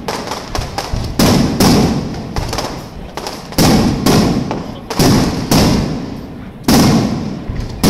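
Aerial firework shells bursting overhead in quick succession: about a dozen loud bangs at uneven intervals, each trailing off into a fading rumble.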